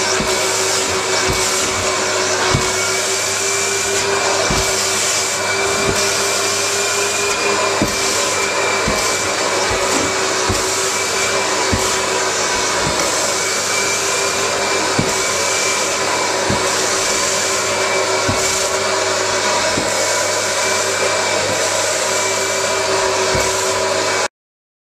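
Carpet steam-cleaning machine's suction motor running steadily with a constant high whine while its hand tool is worked over stair carpet, with scattered light clicks. It cuts off suddenly near the end.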